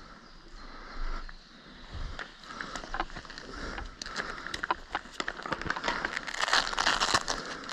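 Rustling and crackling of clothing and gear as a player moves, with a couple of dull thumps early on; the crackling grows denser and louder in the second half.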